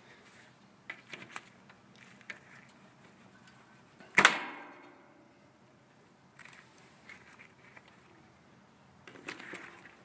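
Small metal clicks and clinks of spade wire connectors being pulled off the terminals of an air conditioner's dual-run capacitor, with one loud ringing metallic clank about four seconds in.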